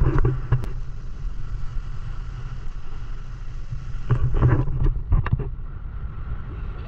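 Speedboat engine running with a steady low rumble, with two short louder bursts of noise, one at the start and one about four seconds in.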